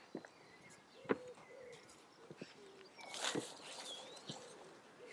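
A pigeon cooing faintly in short low hoots, with small birds chirping now and then. A brief rustle about three seconds in is the loudest sound.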